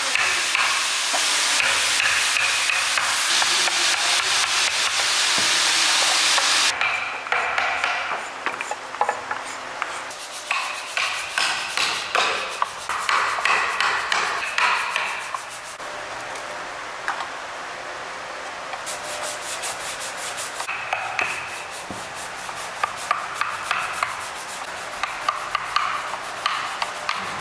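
A hand chisel scraping and paring Indian rosewood (sheesham) as a ladle is carved. A dense, steady scraping hiss cuts off suddenly about seven seconds in, and is followed by runs of short, quick scraping strokes with quieter gaps between them.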